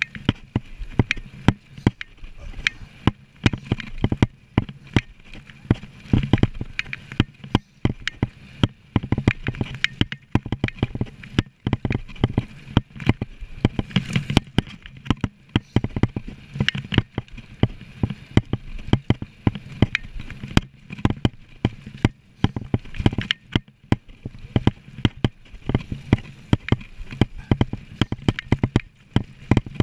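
Mountain bike ridden fast over a rough dirt trail: a constant clatter of knocks and rattles as the bike and camera jolt over bumps, over a low rumble.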